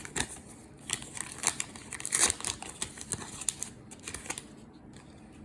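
Trading card pack and cards being handled: irregular crinkling and rustling of wrapper and card stock, stopping near the end.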